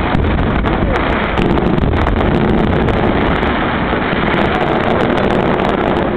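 Fireworks display: a dense, continuous crackle of many sharp pops over a heavy low rumble, with wind buffeting the microphone.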